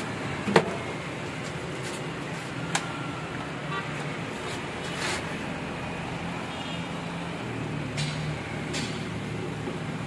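Whirlpool microwave oven's door latching shut with one sharp click, followed by a few fainter clicks as its control dials are turned. Steady street traffic noise runs underneath.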